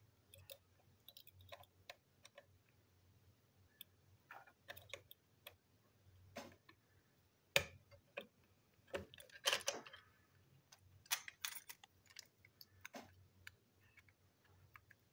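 A small screwdriver working screws out of a plastic toy engine chassis: faint, irregular clicks and ticks of the driver tip and the plastic, thickest in a cluster a little past the middle.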